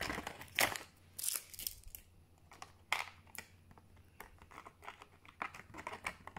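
Clear plastic bag crinkling and rustling as it is handled, in irregular bursts that are busiest in the first two seconds and then come as scattered crackles.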